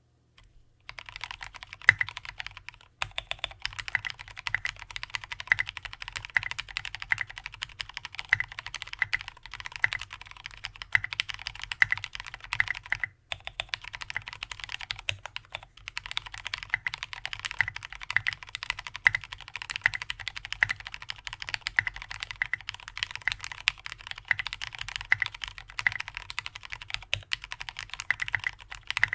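Continuous fast typing on a custom aluminium-plate keyboard with lubed Cherry MX Black linear switches (TX 65 g springs, TX films, silicone dampening sheet) and tall SA-profile keycaps. A dense stream of keystroke clacks, with short pauses about three seconds in and near the middle.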